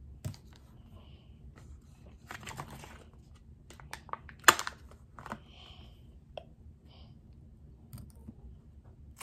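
Small clicks and crinkling from the plastic parts and wrapper of a Kinder Joy egg being handled and picked apart. A short rustle comes about two seconds in, and one sharp plastic click near the middle is the loudest sound.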